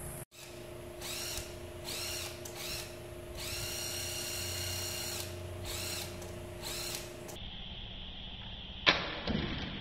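Small cordless drill run against a wooden frame in about six short trigger pulls, the motor whining up to speed each time, one run held for nearly two seconds in the middle. Near the end, a single sharp knock.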